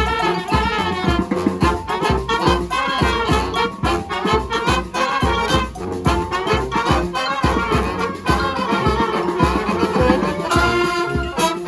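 Live brass band playing an upbeat tune, horns over a steady drum beat, holding a sustained chord near the end.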